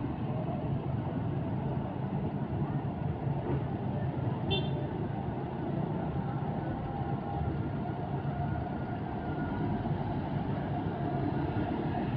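Buses' diesel engines running and moving off, with motorcycles passing, making a steady mix of engine and traffic noise. There is a brief high chirp about halfway through.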